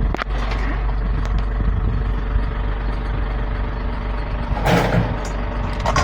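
Truck engine idling steadily, with a sharp click just after the start and two short, louder rushes of noise near the end.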